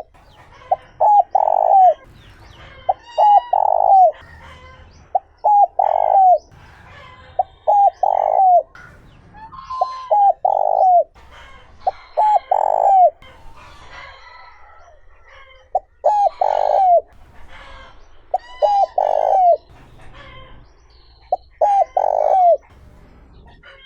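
Spotted dove cooing, repeating its phrase about every two seconds: a few short notes followed by a longer, falling coo. Faint chirps of small birds sound between the phrases.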